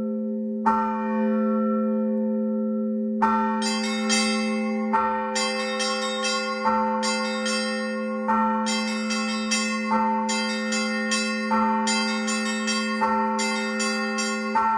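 Russian Orthodox church bells ringing from the bell tower. A low, steady hum runs throughout, with one stroke under a second in. From about three seconds in the smaller bells join in a rhythmic peal, with a stronger stroke about every second and a half to two seconds and quick chimes in between.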